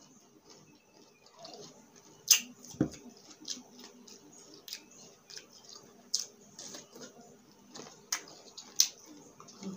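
Close-miked eating: crisp bites and crunching chews of a raw cucumber spear, coming as sharp irregular crunches a second or so apart, the loudest a little over two seconds in and twice near the end.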